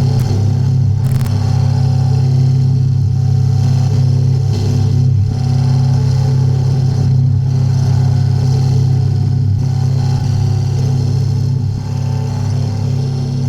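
Harsh noise: a loud, steady low droning hum with a rough, grinding texture, a refrigerator's sound mangled through effects.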